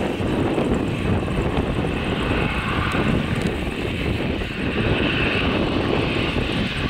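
Airbus A319 jet airliner's twin engines running loud and steady as it decelerates on the runway just after touchdown.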